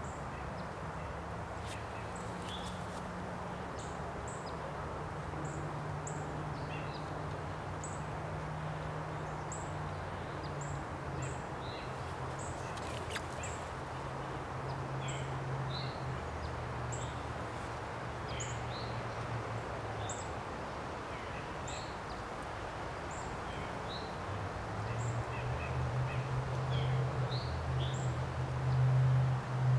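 Small birds chirping, short high calls scattered throughout, over steady outdoor background noise. A low hum runs underneath and grows louder near the end.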